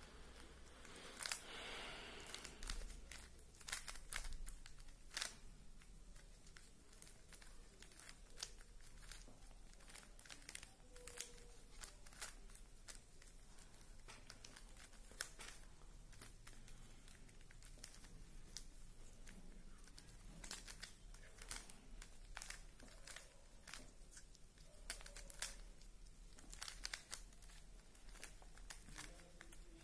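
Plastic Rubik's Cube being turned by hand: a stream of faint, irregular clicks as the layers are twisted.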